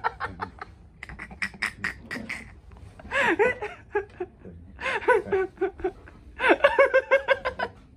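A man laughing in several short bursts of rapid, broken 'ha' sounds, with the longest run near the end.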